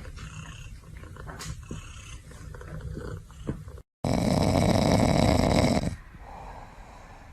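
Sleeping cat snoring. After a brief dropout about four seconds in, there is one loud snore lasting about two seconds, followed by a softer breath. Before the dropout, a quieter low sound runs with a few clicks.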